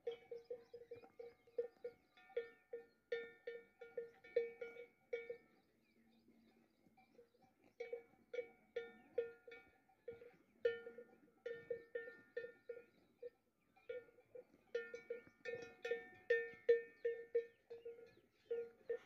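A cowbell on grazing cattle clanking in quick, irregular clusters, with a couple of short breaks.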